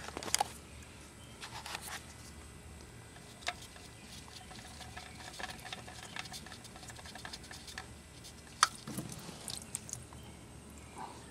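Oil filter being unscrewed by hand from a 2016–2021 Honda Civic engine, with oil dripping and pattering into the drain pan. Small irregular clicks and ticks from the handling, a few sharper ones.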